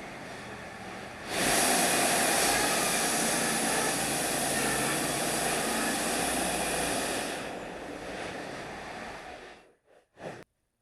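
Wood-Mizer LT35 band sawmill running. It jumps sharply louder about a second in and holds steady for about six seconds, then dies away near the end, with one brief burst just before it stops.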